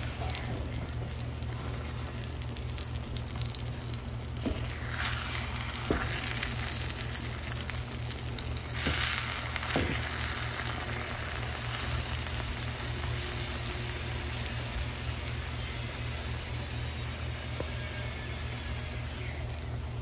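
Egg, tomato and cheese mixture sizzling steadily in a frying pan, swelling louder twice, about four seconds in and again near the middle, with a few light clicks.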